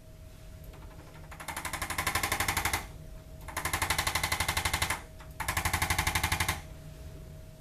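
Hand-held chiropractic adjusting instrument firing rapid taps at about ten a second into the patient's back. It runs in three bursts of a second or so each, with short pauses between.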